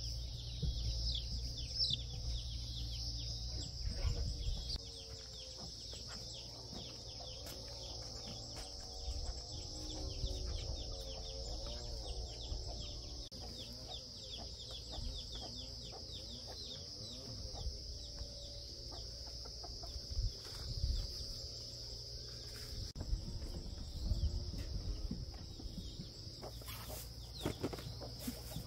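Hens clucking and calling in wavering, drawn-out phrases, over a steady high-pitched drone with short chirps in it. A few low knocks come now and then.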